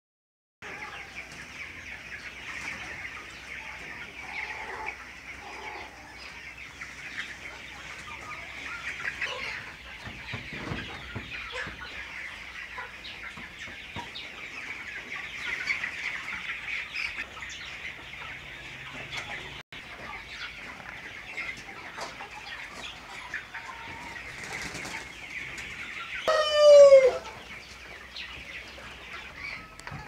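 A large flock of young broiler chickens calling continuously in a dense, steady chorus. About three-quarters of the way through, a single much louder drawn-out call rises over them for about a second and falls away at its end.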